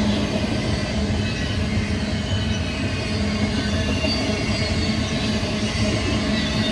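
BNSF intermodal freight train rolling past: a steady, continuous noise of wheels on rail with a steady low hum underneath.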